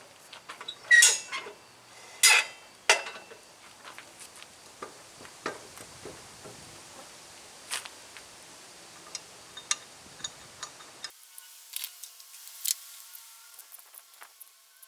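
Metal tools and wheel hardware clanking while trailer wheels are fitted to a garden tractor's hubs. Three loud metallic clanks with a short ring come in the first three seconds, then scattered lighter clicks and taps. About eleven seconds in, the background hiss drops away abruptly.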